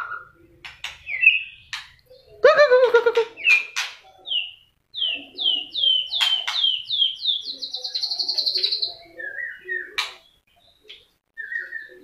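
White-rumped shama singing: a varied phrase of whistled notes that builds into a run of repeated rising-and-falling notes, speeding into a fast trill around the middle, with sharp clicks in between.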